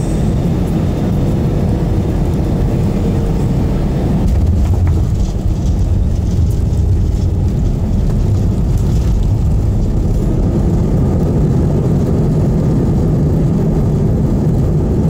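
Cabin noise of a jet airliner rolling down the runway after touchdown: a loud, steady low rumble of engines and wheels on the runway, swelling slightly a few seconds in, with faint cabin rattles.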